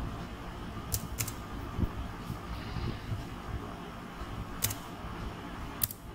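Four sharp computer keyboard keystrokes, a pair about a second in and two more spaced out later, over a steady low background hum.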